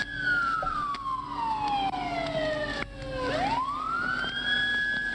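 Police siren on its wail setting. The pitch falls slowly over about three seconds, then climbs quickly back up and holds high near the end.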